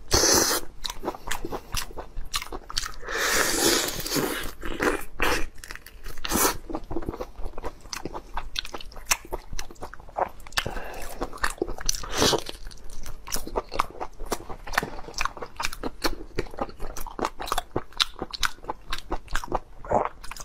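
Close-miked eating of a large raw prawn: wet sucking and slurping at the head and shell, with crunching, biting and chewing clicks in between.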